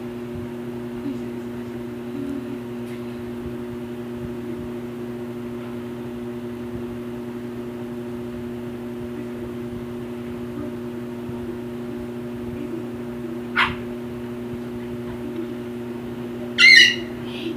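A steady appliance hum, with a short high sound about three-quarters of the way through and a louder brief high-pitched sound near the end.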